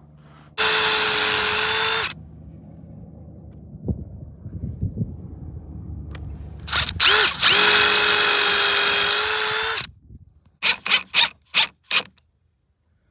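Cordless drill-driver driving screws to fasten a door hinge into a wooden door edge. It runs at a steady pitch for about a second and a half, then, after a pause with some handling noise, gives a few short spurts and a longer run of about three seconds. It ends in a quick series of short trigger pulses as the screw is snugged down.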